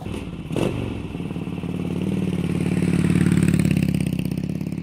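Motorcycle engine running with a brief knock about half a second in, its pitch and loudness climbing over the first three seconds and then easing off slightly.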